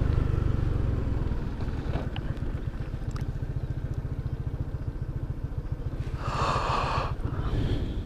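A scooter's engine runs under the rider, with a steady low rumble and rapid even pulsing, mixed with wind noise on a helmet-mounted camera while riding. A brief louder rushing sound comes about six seconds in.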